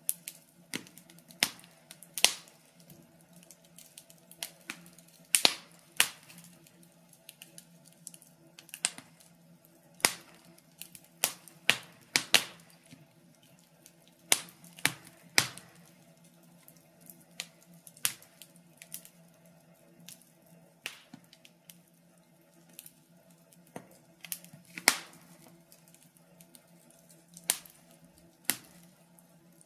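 Wood fire crackling: irregular sharp pops and snaps, some loud and some faint, at uneven intervals of a second or so.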